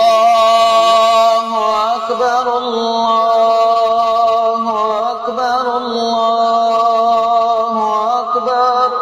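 A man chanting in a Middle Eastern style, holding long notes and bending them in wavering ornaments, with a short breath break about a second and a half in.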